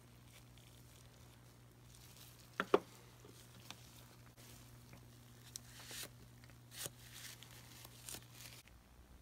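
Handling sounds of a steel adjustable wrench: two sharp metallic clicks about two and a half seconds in, the loudest moment, then a few lighter clicks as the wrench is laid down. Later comes soft rustling as a cloth wipes the painted metal, over a steady low hum that stops near the end.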